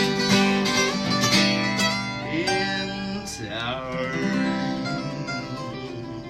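Live music: strummed acoustic guitar and a singing voice holding a last word, the final chord then ringing out and fading at the song's end.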